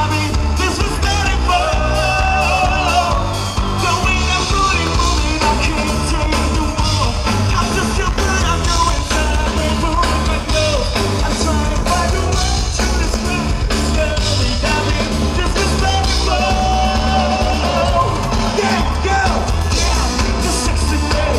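Live rock band: a male vocalist singing into a microphone over bass guitar and a steady, pulsing low beat, played loud through stage speakers.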